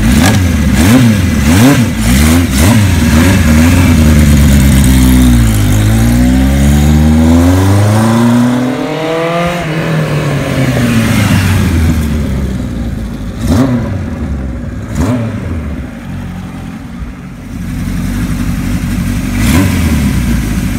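A 1975 Kawasaki Z1 900's inline-four engine is revved in several quick blips, then the bike pulls away, its pitch climbing and falling through the gears. The engine fades with distance and grows louder again near the end as the bike comes back.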